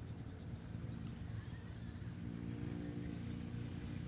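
A motor engine running steadily at low pitch, growing slightly louder, with an insect trilling high in short repeated phrases over it.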